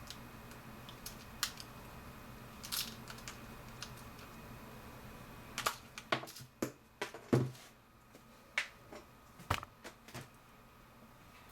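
Scattered clicks and taps of a camera body and lens being handled, with a cluster of sharper knocks from about six to seven and a half seconds in.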